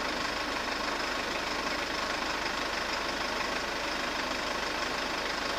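A vehicle engine idling steadily, with no change in pitch or level.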